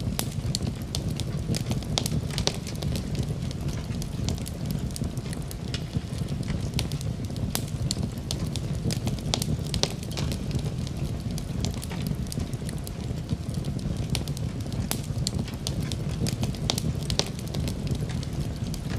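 Fire burning in a fireplace: a steady low rush of flames with frequent, irregular sharp crackles and pops.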